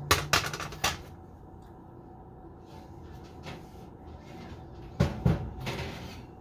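Metal baking pan of pumpkin seeds set down on an electric stovetop, a few sharp clanks in the first second. About five seconds in comes another cluster of clanks as the oven and a second pan are handled.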